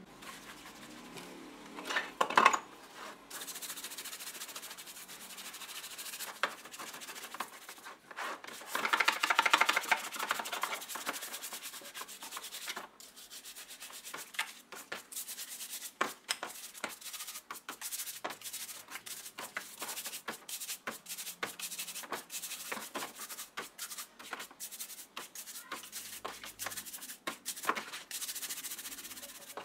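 Scouring pad scrubbing plastic drill housing parts in a tray of soapy water: quick, uneven rubbing strokes, with two louder stretches about two seconds in and around nine to eleven seconds in.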